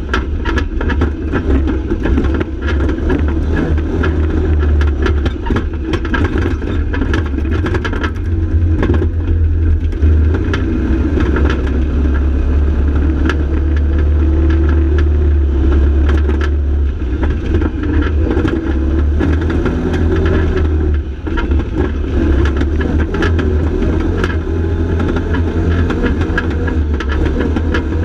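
Arctic Cat side-by-side UTV engine running while the vehicle drives a bumpy sandy trail, its pitch rising and falling with the throttle. A heavy low rumble and frequent rattles and knocks from the cab come with it.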